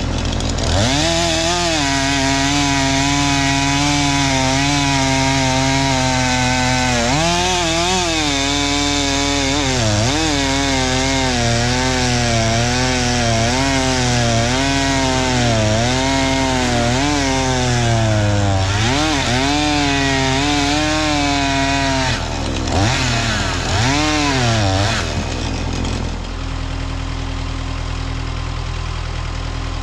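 Husqvarna 435 X-Torque two-stroke chainsaw at full throttle bucking firewood, its pitch dipping and recovering again and again as the chain loads up in the cuts. Over twenty seconds in it comes off the wood, is blipped a couple of times and drops to idle.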